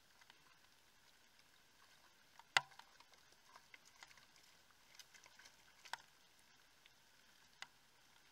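An animal's footsteps in dry leaf litter: faint scattered crackles and twig snaps, the sharpest about two and a half seconds in and smaller ones near six and seven and a half seconds. A faint steady high hiss runs underneath.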